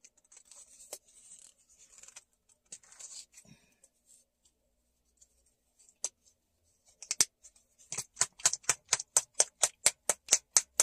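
Hands working a small plastic paint bottle: faint scratchy handling, one sharp click about six seconds in, then an even run of quick sharp clicks, about five a second, over the last few seconds.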